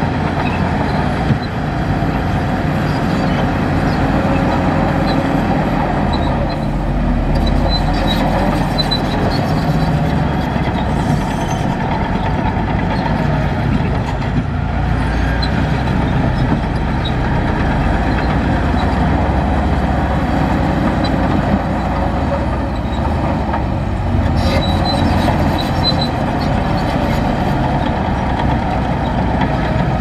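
A heavy diesel earthmoving machine running steadily under load, with light metallic clanking over the engine.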